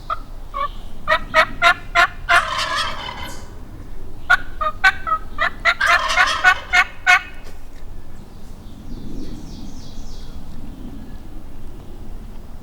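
Wild turkey gobbling twice, about four seconds apart: each time a run of sharp, loud notes that runs into a rattling gobble. A fainter, high, fluttering bird call follows later.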